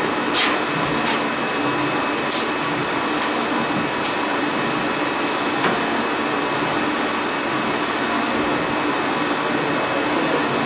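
UV flatbed inkjet printer printing on a clear plastic sheet: a steady machine whir and hiss that dips and returns in a regular rhythm about every 1.2 seconds as the print head carriage travels back and forth, with a few light clicks in the first four seconds.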